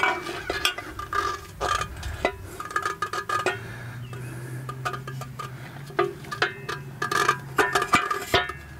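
Eley garden hose reel parts clinking and knocking as the reel drum is fitted onto its wall bracket: a string of sharp metallic clinks, some ringing briefly.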